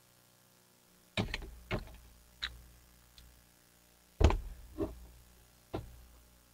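A series of short knocks and clunks from objects being handled close to the microphone, about seven in all, irregularly spaced, the loudest about four seconds in.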